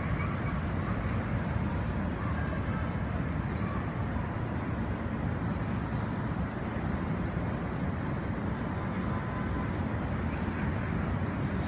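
Steady outdoor rush of wind on the microphone mixed with the hum of city traffic far below, heard from high up a tower; no single event stands out.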